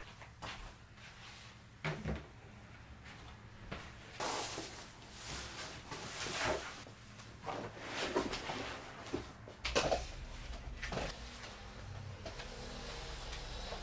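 A thick quilted comforter being handled and shifted on a bed: fabric rustling and swishing in several bursts, with a few soft knocks.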